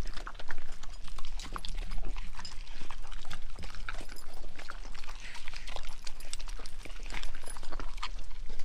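Huskies eating raw food from ceramic bowls: a quick, irregular run of wet chewing, smacking and licking clicks.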